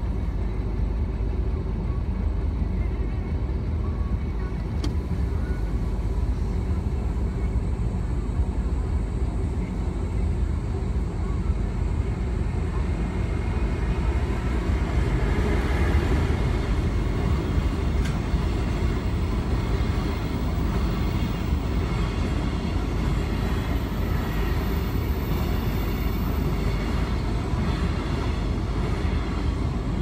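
Muffled rumble of a freight train, hauled by an EF510-500 electric locomotive, passing a level crossing, heard from inside a car's cabin; it swells a little about halfway through as the locomotive goes by.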